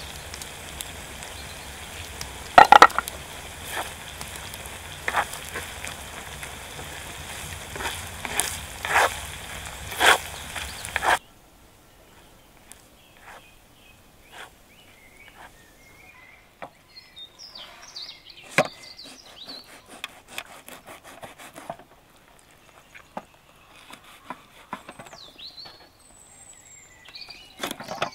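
Sliced onions sizzling steadily in sheep tail fat on a sadj over a wood fire, with several sharp knocks and scrapes of a wooden spatula against the pan. About 11 seconds in the sizzle cuts off suddenly, leaving a much quieter outdoor background with scattered small ticks and a few high chirps.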